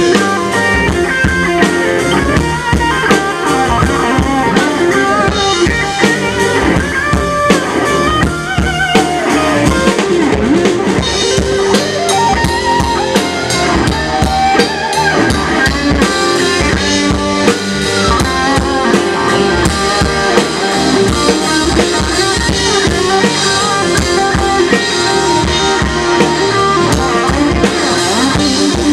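Live rock band playing: a drum kit with bass drum and cymbals keeping a steady beat under electric guitar.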